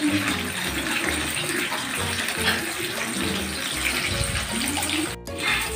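Bacon sizzling in a little oil in a frying pan over turned-up heat, a steady hiss. The sound cuts out for an instant near the end.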